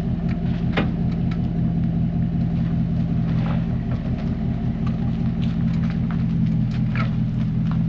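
Pickup truck engine idling steadily, a low even hum, with a few faint knocks over it.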